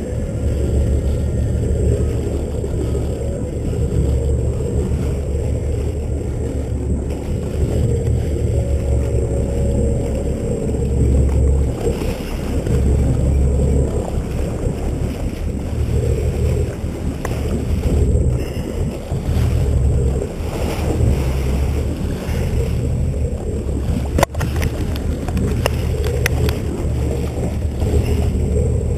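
Fishing boat under way: a steady low rumble of the boat and wind buffeting the microphone, with water rushing along the hull. A single sharp click late on.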